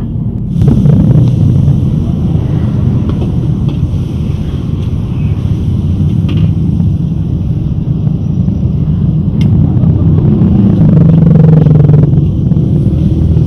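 Flat rice noodles stir-frying in a carbon-steel wok: sizzling and a metal spatula scraping and tossing, over a steady low rumble. The sizzle jumps louder about half a second in, and the spatula clanks sharply once against the wok about two-thirds of the way through.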